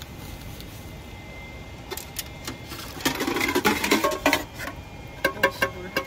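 Nested camping cook pots clattering and clinking against each other as they are pulled apart and handled: a few knocks about two seconds in, a busy stretch of clatter a second later, then more separate clinks near the end.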